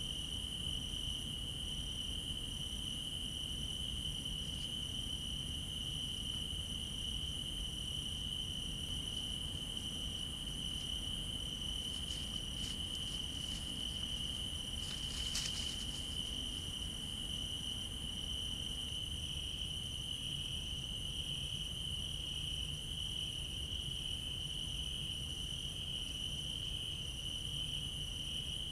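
Crickets chirping at night in a steady, unbroken trill, with a second insect pulsing on a higher note. About halfway through there is a brief patch of rustling and clicks close by.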